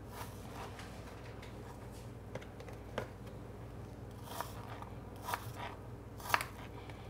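A kitchen knife cutting apple into small pieces on a cutting board: irregular crisp cuts and sharp taps of the blade against the board, the loudest about six seconds in.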